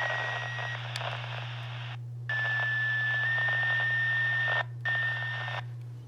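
Uniden BC125AT scanner putting out radio static hiss with a steady high whistle through it. It cuts out for a moment about two seconds in and again near the end, then stops. A steady low hum runs underneath.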